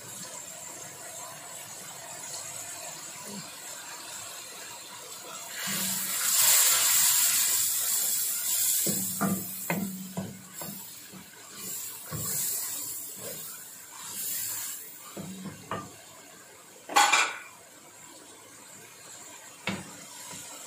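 A wooden spoon stirring and knocking against a metal pan of frying onions in oil and a little water as salt and ground chilli go in. A louder sizzling hiss lasts a few seconds from about six seconds in, short knocks of the spoon on the pan follow, and there is one sharp knock near the end.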